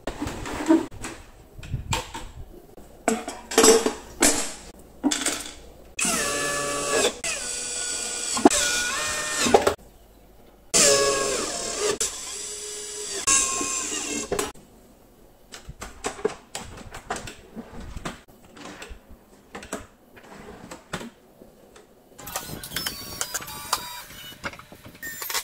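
Cordless drill-driver driving screws into particleboard cabinet panels. The motor whine rises and falls in pitch over a few runs lasting several seconds each, with knocks and clicks from the panels being handled in between.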